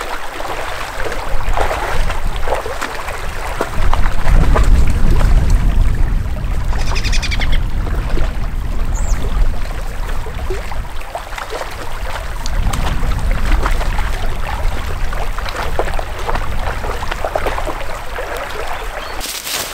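Splashing steps of a hiker and a dog wading through a shallow, rocky mountain creek, over the steady sound of the running stream, with a low rumble from about four to ten seconds in. A bird calls briefly about seven seconds in.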